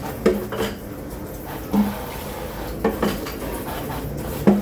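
Dishes and utensils knocking and clinking against each other in a kitchen sink while being hand-washed, about half a dozen sharp knocks, some with a short ring.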